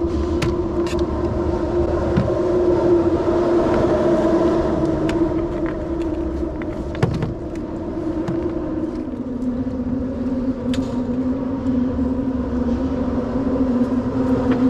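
A steady engine drone with a clear pitch that drops to a lower note about nine seconds in, over a low rumble, with a few light knocks.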